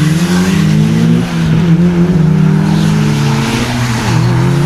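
A car engine accelerating hard. Its pitch climbs steadily, drops sharply about a second in and again near the end as it shifts up a gear, then climbs again.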